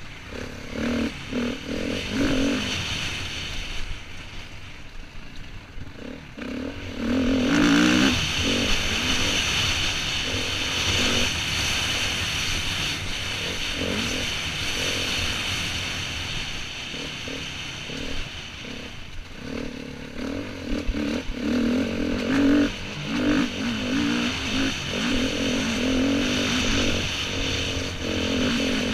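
Enduro dirt bike engine being ridden hard on a rough dirt track. The revs rise and fall as the throttle is opened and chopped, with many short cut-backs. Through the middle stretch it runs steadier under a loud rushing hiss, and knocks from the rough ground are heard throughout.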